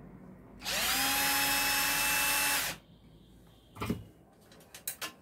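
Electric drill-driver running for about two seconds to take out a nut, its whine rising as it spins up and then holding steady. A few short clicks and knocks follow.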